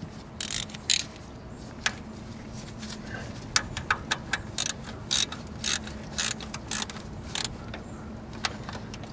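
Ratchet wrench clicking in short strokes while the 10 mm bolts of a thermostat housing are tightened down: a string of sharp, irregular clicks, about two a second through the middle.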